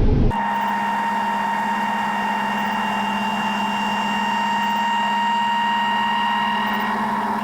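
A steady machine hum made of several held pitches, with no low rumble, which cuts in abruptly just after the start and stays unchanged.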